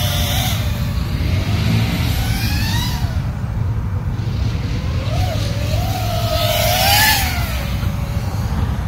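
FPV racing quadcopter's motors and propellers whining in flight, the pitch gliding up and down with the throttle and swelling louder about seven seconds in, over a steady low rumble.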